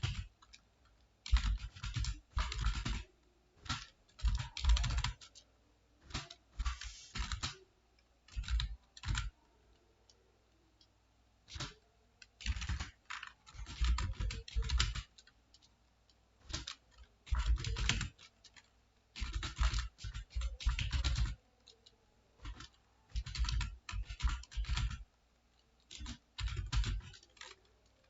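Computer keyboard being typed on in quick runs of keystrokes, broken by short pauses.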